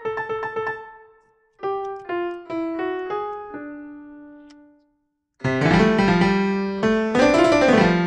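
Piano-type GarageBand keyboard sound played from a Korg nanoKEY Studio MIDI controller: quick repeated notes, then a descending run of single notes that dies away. After a brief pause come loud full chords, their pitch swooping up and back down near the end.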